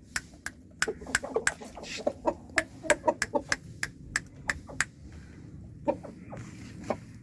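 Chickens clucking: a quick, irregular run of short clucks that thins to a few scattered ones after about five seconds.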